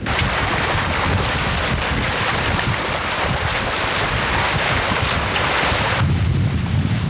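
Water rushing past a sailboat under way, a steady loud hiss, over low wind buffeting on the microphone. The hiss cuts off suddenly about six seconds in, leaving only the wind rumble.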